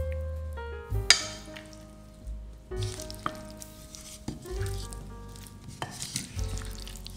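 Wooden spoon stirring and tossing a chopped cucumber, tomato, onion and avocado salad in a ceramic bowl, in irregular strokes, the loudest about a second in, over soft piano background music.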